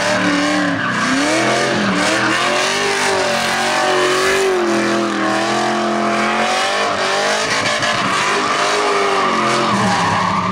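LS V8 drift car revving up and down as it slides, its tyres squealing.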